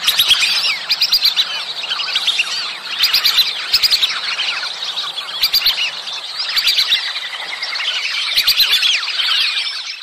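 A flock of whistling ducks calling together: many overlapping high, thin whistles that swell and ease in waves, with a few sharp clicks among them. These are mating-season calls of the kind played as a duck call.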